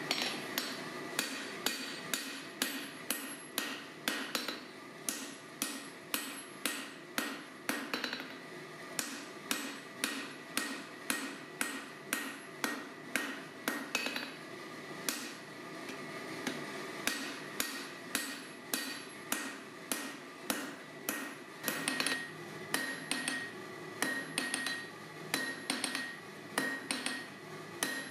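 Hand hammer forging steel on an anvil: a steady run of blows, about two a second, each with a metallic ring, and a high ring that carries on between them. The blows pause briefly about halfway through, then come lighter and quicker near the end.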